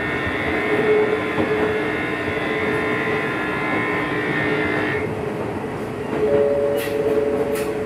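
Gakunan Railway electric train running, heard from inside the car: steady running noise with a high whine that cuts off about five seconds in, and two sharp rail clicks near the end.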